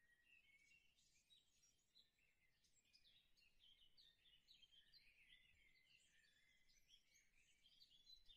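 Near silence, with faint, high, twittering chirps throughout.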